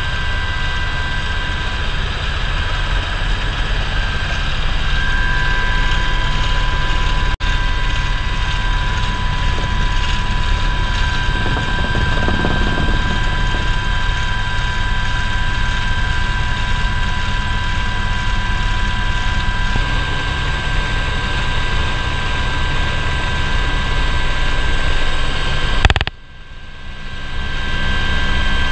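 Aérospatiale Alouette II helicopter in flight, heard from inside the open cockpit: a steady turbine whine over the dense low noise of the rotor and engine, with a further whine tone coming in about five seconds in. Near the end a sharp click is followed by a sudden drop in the sound, which swells back over a couple of seconds.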